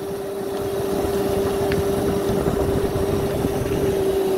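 Electric motorbike powered by Makita tool batteries, riding along: a steady whine held at one pitch, over rumbling road and wind noise that swells slightly in the first second.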